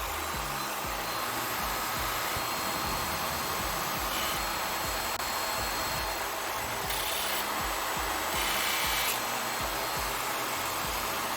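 A power tool's motor runs steadily while a tool works against a hard surface, with three brief stronger hissing spells about 4, 7 and 8½ seconds in. Background music with a bass line plays underneath.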